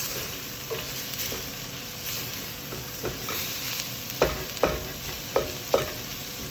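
Onions, green peppers and garlic sizzling in a pot with tomato paste and spices as they are stirred together. The stirring utensil knocks against the pot four times in the second half.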